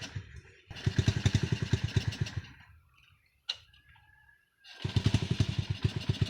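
A Honda 67 motorcycle's small single-cylinder engine kicked over twice, each kick giving a burst of rapid putts that fades and dies within about two seconds: it fires briefly but does not start. There is a sharp click between the two attempts.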